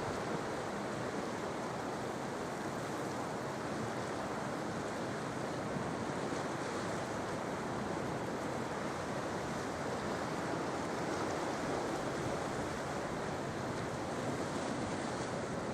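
Sea surf washing onto the shore: a steady, even rush of breaking waves with no single crash standing out.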